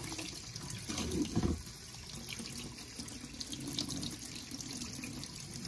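A tap running steadily into a stainless steel sink, the water splashing over hands being washed, with a brief low sound about a second in.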